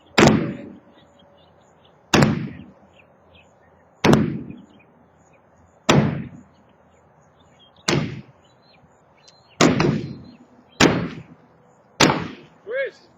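Heavy blows breaking a silo wall during demolition: eight loud, sharp impacts, each with a short ringing decay, landing about every two seconds and coming a little faster near the end. Birds chirp faintly between the blows.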